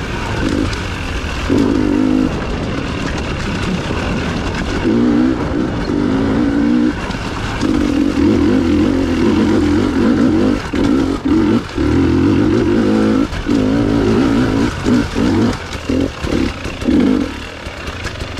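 Dirt bike engine revving up and down as the rider works the throttle on and off, with frequent short cut-offs and pick-ups.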